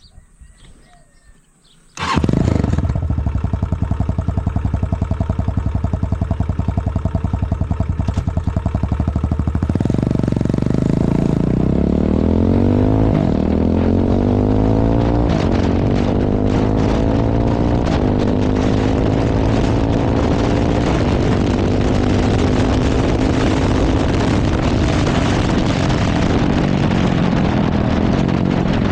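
Vento Crossmax 250 Pro motorcycle's single-cylinder engine starting about two seconds in and idling with a steady beat. About ten seconds in, the engine speed climbs in several steps and stays high to the end.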